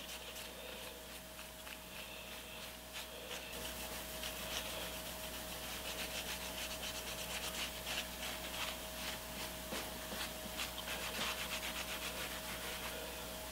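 Swan air compressor valve plate rubbed back and forth by hand on a paper shop towel dampened with WD-40: a soft, quick scrubbing of many short strokes that gets busier about four seconds in. A faint steady hum sits underneath.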